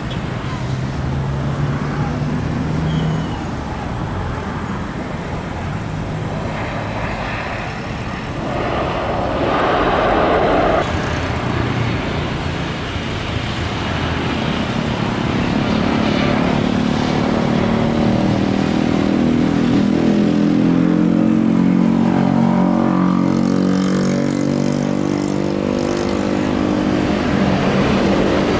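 Jet airliner engines on landing approach: a steady drone with a pitched hum that grows louder through the second half as a Boeing 777 comes in over the runway and touches down.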